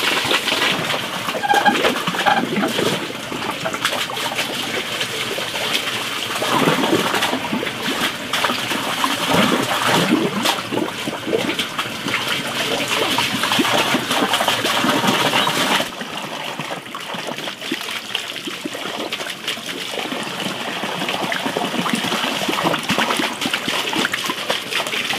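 Water running from a tap and splashing over napa cabbage leaves into a basin of water as the leaves are rinsed and wrung out; a steady splashing trickle that changes slightly about two-thirds of the way through.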